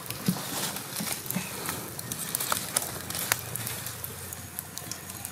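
Small wood fire crackling under skewered fish, with irregular sharp pops and clicks from the burning twigs and charcoal.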